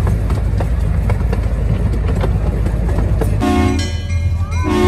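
Miniature park train running, heard from an open passenger car: a steady low rumble of the wheels with a regular clicking over the rail joints. About three and a half seconds in the locomotive's horn sounds a long chord-like blast, and a second blast starts just before the end, as the train comes up to a railroad crossing.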